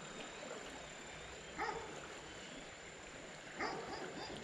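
Two short, faint animal calls about two seconds apart, over the low rush of creek water.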